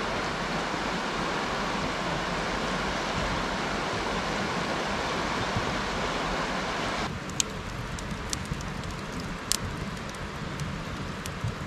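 River water rushing steadily, cutting off suddenly after about seven seconds to a wood campfire crackling, with a handful of sharp pops from the burning logs.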